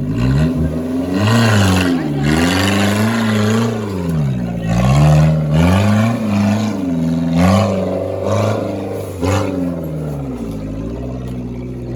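Off-road 4x4's engine revving up and down again and again under load as it works through the course, with repeated bursts of rushing noise over it.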